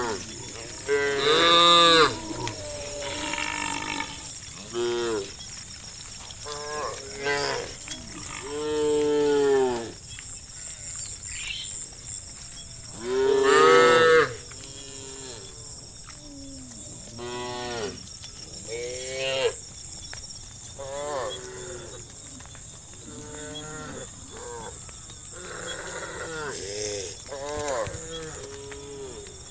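A herd of cows mooing again and again, with one call after another from several animals. Each moo swells and falls away in pitch. The loudest calls come about a second in, around nine seconds, and around thirteen to fourteen seconds. A steady high-pitched hiss runs underneath.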